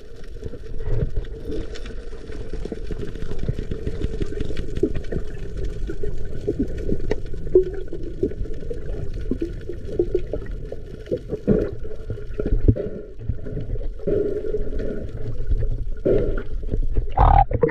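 Water sloshing and bubbling close to the microphone, with many scattered small clicks and a louder knock near the end.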